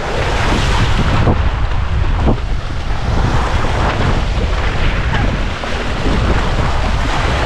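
Wind buffeting the microphone with a heavy rumble, over small harbour waves washing and splashing against the rocks at the water's edge. There are a couple of brief knocks about one and two seconds in.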